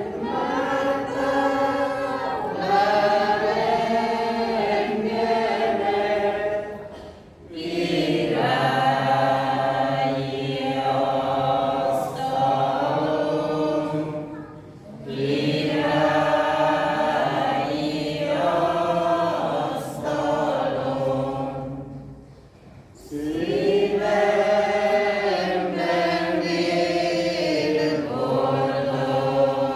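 Mixed choir of men and women singing a hymn in Romanian, breaking off briefly three times between phrases.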